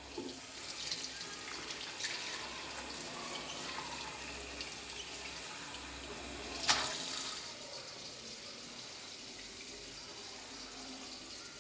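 Tap water running steadily into a sink and splashing over cupped hands, with a few small knocks and one sharp, loud hit about two-thirds of the way through.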